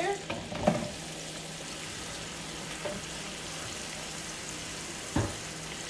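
Cubed raw chicken breast sizzling steadily in hot oil in a wok. Two brief knocks, one near the start and one about five seconds in.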